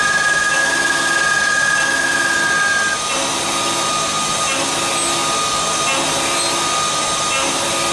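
CNC mill-turn machine milling a brass workpiece: a steady machining whine and hiss with a constant high tone. A second, higher tone cuts off about three seconds in, and a low hum pulses on and off about once every second and a bit.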